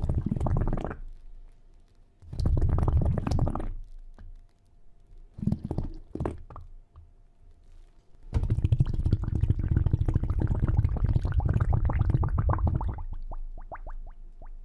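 Minke whale underwater calls: low rumbling pulse trains, several short bouts and then a longer one of about five seconds that ends in a few quicker clicks.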